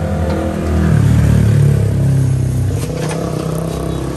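A motor vehicle engine running close by on the street, swelling loudest between about one and three seconds in, over steady street noise.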